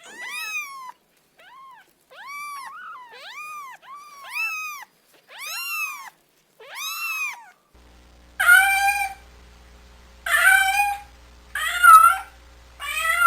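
Domestic cat meowing: a series of short, high meows that each rise and fall in pitch, then after a sudden cut about two-thirds of the way in, four louder, harsher meows about a second and a half apart over a steady low hum.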